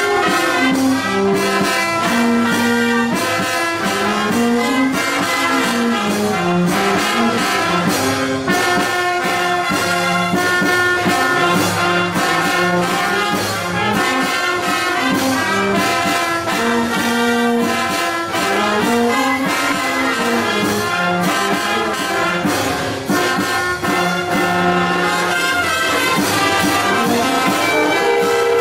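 Colombian banda pelayera playing a pilón: trombones and trumpets carry the melody over a steady, even beat.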